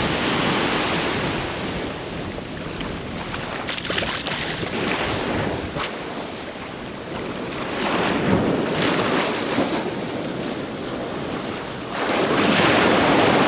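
Small shore-break waves breaking and washing up a sandy beach, with wind buffeting the microphone; the surf swells louder a few times, most of all near the end, and a few light clicks come in the middle.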